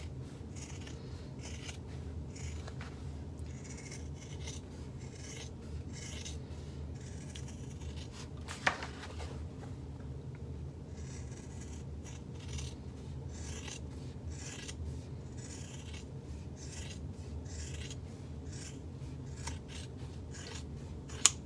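Scissors snipping again and again in short, irregular cuts, trimming the seam allowance of a sewn fabric bag flap. A sharper click stands out about nine seconds in, over a faint steady hum.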